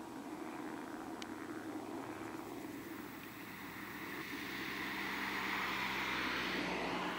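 Boeing 737-800 jet engines on landing approach: a steady rushing drone with a low hum, growing louder over the last few seconds as the aircraft comes closer.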